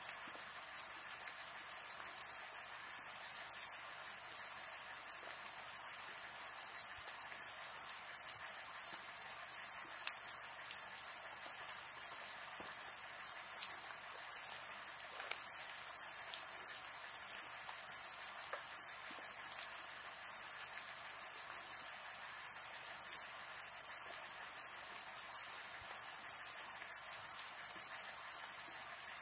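Night insects calling: a high chirp repeated evenly, about three every two seconds, over a steady high-pitched drone.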